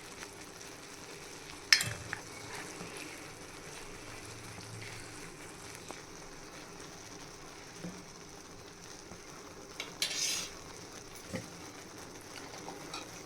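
Pot of soup simmering quietly on the stove, with a sharp clink of a spoon against the pot about two seconds in and another short clatter near the end.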